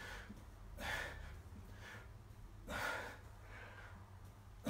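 A man breathing hard during press-ups: two heavy breaths about a second and nearly three seconds in, with fainter breathing between.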